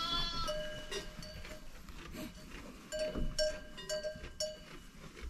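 A goat bleats once at the start. Then a small livestock bell on the flock rings in short strikes, several times between about three and four and a half seconds in.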